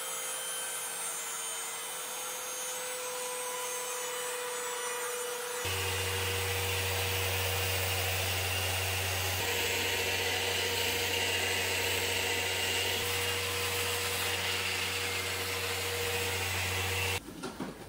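Hand-held power tools with dust-extraction hoses working a crack in a stone kitchen countertop. For about the first five and a half seconds a small tool runs with a steady high whine and hiss. Then a louder machine sound with a steady deep hum takes over and stops shortly before the end.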